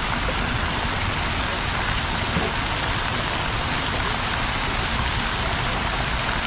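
Steady rushing and splashing of flowing water from a plaza fountain and water feature, an even wash of sound with no breaks.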